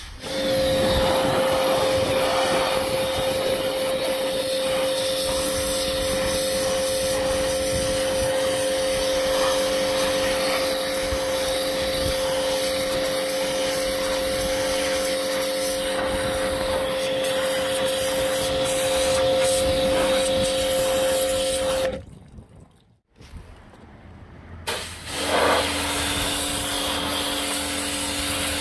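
Kärcher K5 electric pressure washer running, a steady motor whine under the hiss of the water jet spraying mildew off a plastic garden seat. The sound drops out for a couple of seconds a little over twenty seconds in, then the machine runs again with a lower tone.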